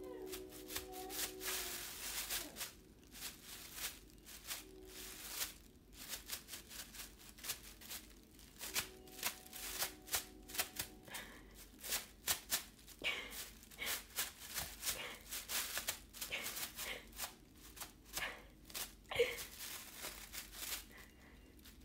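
Thin plastic grocery bag crinkling and rustling in irregular bursts as a cat paws at it and pushes its head into it.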